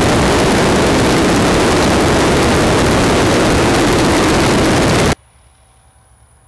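Boeing F4B-2 replica biplane in flight: loud, steady engine and propeller noise mixed with wind rushing over the microphone. It cuts off abruptly about five seconds in, leaving only a faint hiss.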